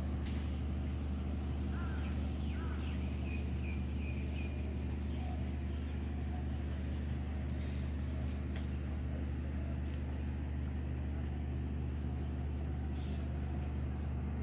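A motor running steadily with an even low hum. A few faint high chirps come through about two to five seconds in.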